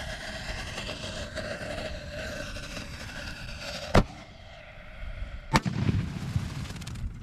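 A lit firework fuse hissing and crackling, then two sharp explosions about a second and a half apart, the second followed by a brief low rumble: a stress-test aerial shell firing and then exploding inside the culvert-pipe mortar rack.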